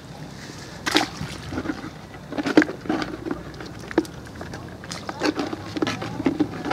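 Hand splashing and rummaging in water in a plastic bucket, with a string of short sharp splashes and knocks.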